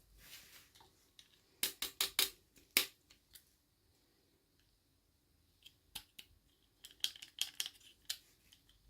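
Sharp, crisp clicks from toy packaging being handled and opened, in a quick run of about five clicks around two seconds in and another bunch near the end.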